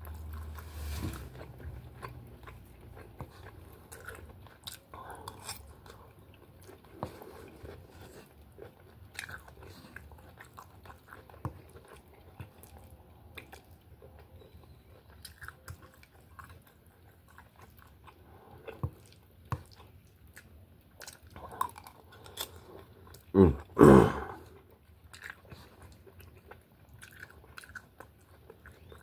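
Close-up chewing and mouth sounds of a man eating a vegetable, chicken and rice stir-fry, with small clicks of a metal spoon against the plate. Near the end come two short, much louder sounds in quick succession.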